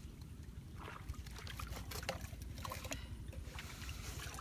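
Wind rumbling on the microphone, with scattered light clicks and scrapes as blue PVC pipe fittings are picked up and handled.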